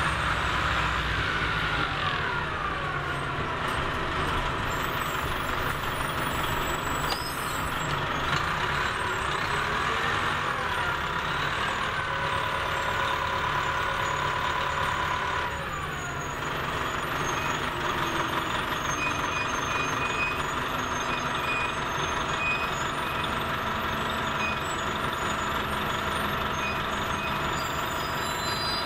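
An Orion V transit bus's diesel engine and drivetrain, heard on board while it drives. A whine rises and falls in pitch as it accelerates through the gears, holds steady, then drops away about halfway through as the bus eases off.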